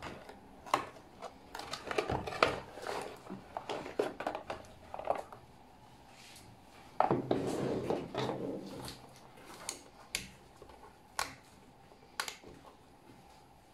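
Cardboard packaging and the plastic control box of an electric nail drill being handled: scattered clicks, knocks and cardboard rustling, with a longer scrape about seven seconds in as the unit slides out of its box, then a few single clicks.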